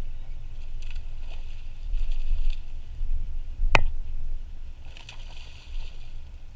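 A hooked bass splashing at the surface about five seconds in, after a single sharp click near the middle, over a steady low rumble.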